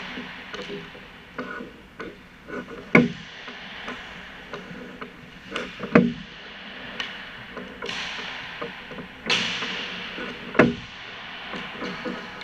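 Ice hockey sticks striking pucks during passing, sharp echoing slaps every few seconds, three of them loudest, with lighter clacks between. A scraping hiss comes about nine seconds in.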